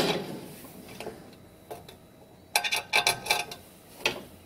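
Sharp metallic clicks and ringing clinks as the cast aluminum heated bed plate and its standoff hardware are handled: one at the start, a quick run of clinks just past halfway, and one more near the end.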